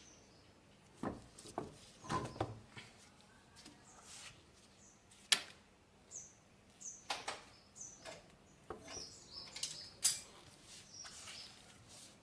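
Scattered sharp clicks and knocks of tools and parts being handled during work on the car, with several short high bird chirps in between.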